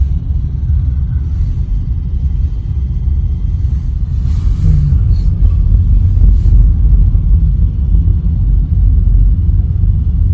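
Steady low rumble of a car driving slowly, heard from inside the cabin: engine and road noise, a little louder about halfway through.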